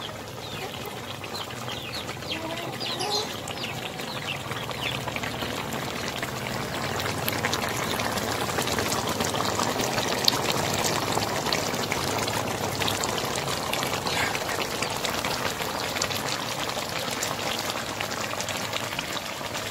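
Chicken pieces simmering in spice broth in a wok over a wood fire: a steady bubbling with many fine pops and crackles, building up over the first few seconds.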